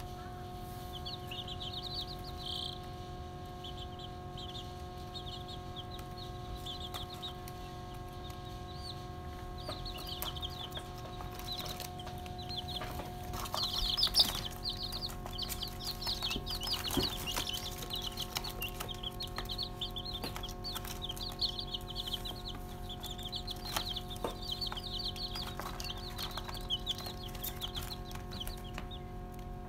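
A group of young chicks peeping: short, high cheeps, scattered at first, then a dense, continuous chorus from about halfway through. A steady hum runs underneath.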